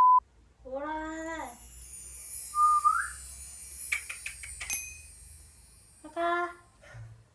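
A short electronic beep, then a Maltese puppy whining: a rising-and-falling high-pitched whine about a second in and a shorter one near the end. Between them come a brief upward whistle-like squeak and a few light clicks.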